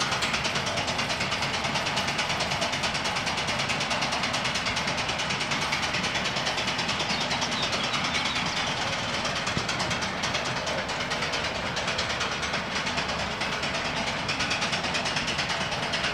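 Steady mechanical noise with a fast, even pulse of about four beats a second.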